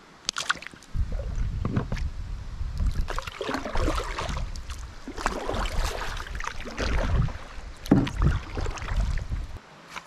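Water splashing and knocking against a kayak, with a low rumble over the microphone. It starts about a second in and stops suddenly just before the end.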